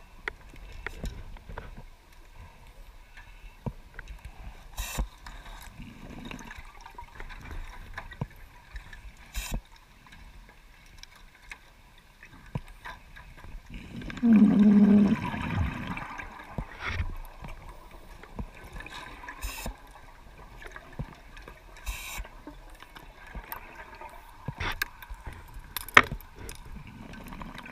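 Underwater sound picked up through a camera housing: scattered sharp clicks over a low hiss, with a loud gurgling burst of gas bubbles about halfway through that lasts about two seconds.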